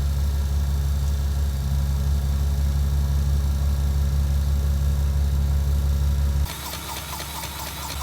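A vehicle engine running steadily at idle with a low, even hum. About six and a half seconds in, the sound cuts abruptly to a quieter, different engine sound with light ticking.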